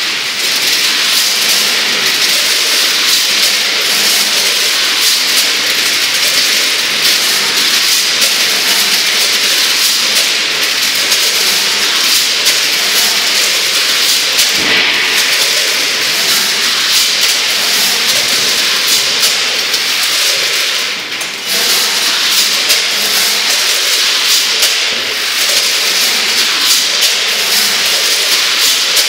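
Steady, loud hissing noise from a semi-automatic packing line built around a multihead weigher, running without a break apart from a brief dip about two-thirds of the way through.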